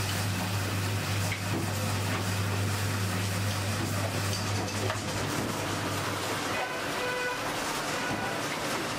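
Belt-driven ice-shaving machine spinning a block of ice against its blade: a steady motor hum under a grinding hiss of ice being shaved, the hum dying away about five and a half seconds in.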